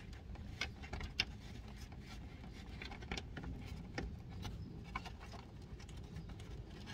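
Hands working plastic bumper trim and a screw by hand: scattered small clicks, taps and scrapes, the sharpest about a second in.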